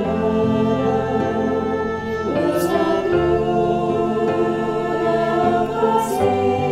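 Mixed choir of men and women singing a Christian choral anthem in held chords, moving to a new chord every second or so.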